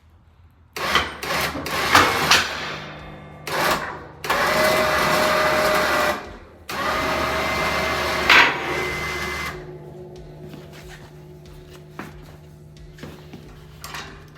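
Can-Am Defender's electric front winch running in two pulls of about two seconds each, hoisting the snowplow onto its mount, with clunks of the plow and mount in the first seconds. After the second pull stops, a quieter steady hum carries on.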